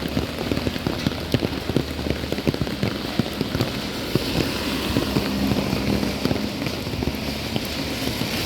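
Heavy rain drops hitting an umbrella overhead as many short, sharp ticks over a steady hiss of falling rain. The hiss grows stronger from about halfway.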